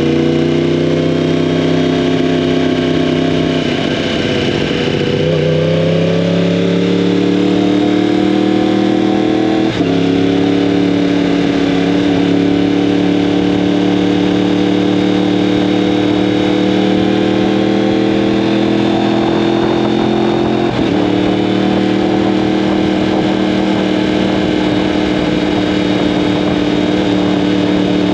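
2015 Yamaha R1M's crossplane inline-four engine through an Akrapovic exhaust, pulling under way with a slowly rising pitch. It eases off and picks up again around four seconds in, and the pitch drops sharply with a gear change about ten seconds in and again about twenty-one seconds in.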